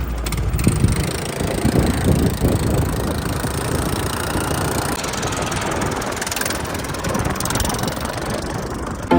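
A motor vehicle's engine running steadily, a rough, noisy rumble strongest in the low end.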